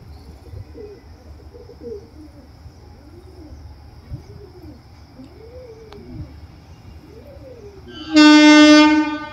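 An approaching train's locomotive horn gives one loud, steady blast about a second long near the end, over repeated rising-and-falling bird calls about once a second.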